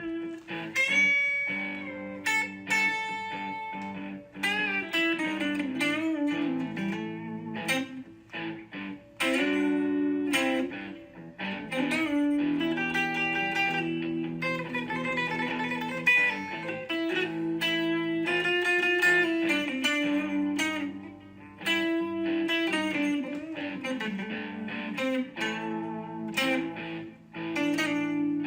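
Background music: a plucked guitar melody over a steady bass line.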